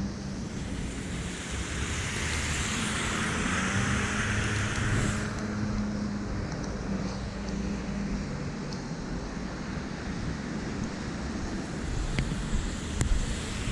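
A car passing on a rain-wet street, its tyres hissing through the water, swelling about a second in and dropping away after about four seconds, over a steady low rumble of traffic.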